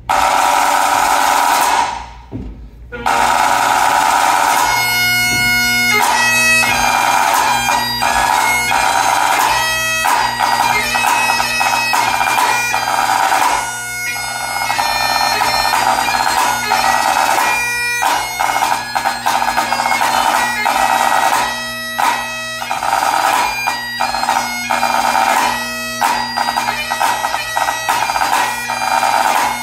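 A Great Highland bagpipe and a pipe band snare drum playing a tune together: the pipes' steady drones sound under the chanter's melody while the snare plays rolls and strokes. It opens with two rolls on the snare, and the pipes come in about five seconds in.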